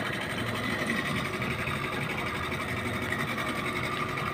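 Daiwa Saltiga jigging reel whirring steadily while a hooked tuna is fought on the line.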